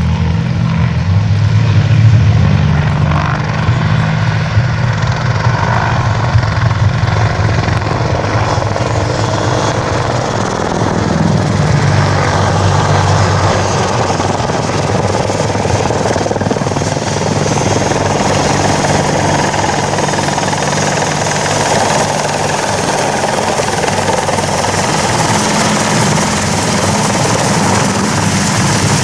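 AH-64 Apache attack helicopter flying close: the deep throb of its four-blade main rotor together with the rush and whine of its twin turboshaft engines. The rotor throb is strongest in the first half; from about halfway the higher engine rush grows stronger as it comes down to hover low.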